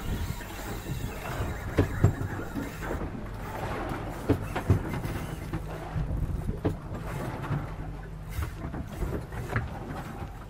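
Large saltwater spinning reel under heavy load as a hooked tiger shark pulls against it, the drag squealing as line is taken, with scattered sharp knocks from the rod and boat.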